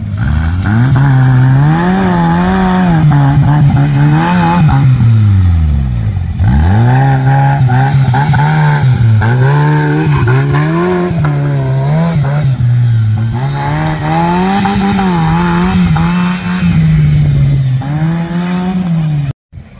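Small home-built tractor's engine being driven hard, revving up and down over and over. About six seconds in, the engine speed sags sharply and then climbs back. The sound cuts off suddenly near the end.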